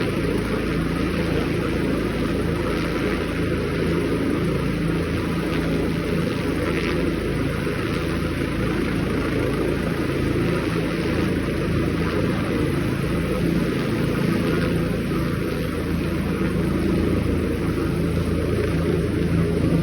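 Helicopter running, a steady drone that holds at one level with no rise or fall.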